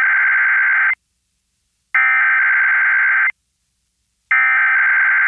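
Emergency Alert System SAME header: bursts of buzzy, warbling digital data tones, each about a second and a half long, with a second's silence between them. The first burst ends about a second in, a second burst follows, and a third starts near the end. These bursts encode the start of an alert activation.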